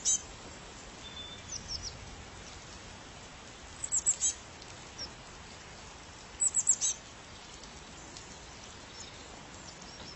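A small bird calling in short bursts of three or four quick, high, falling chirps, four times, over a steady hiss of rain.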